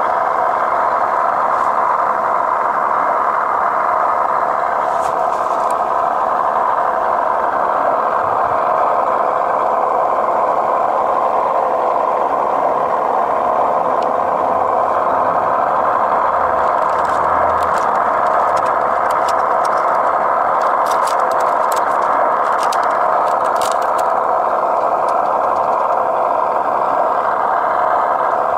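RC Land Rover pickup running a steady, engine-like idle that holds at an even level throughout, with light clicks and rattles in the second half.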